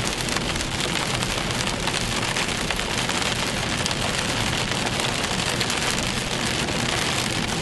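Heavy rain hitting a car's windshield and body, heard from inside the moving car: a dense, steady patter of drops.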